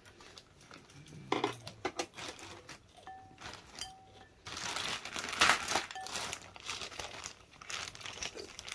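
Table and eating noises: sharp clicks of chopsticks and a spoon against dishes, then steady crinkling and rustling from about halfway.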